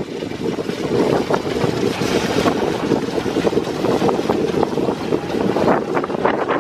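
Wind buffeting the microphone on a moving golf cart, a loud dense rumble, with the cart's rattles and knocks as it rolls along the path.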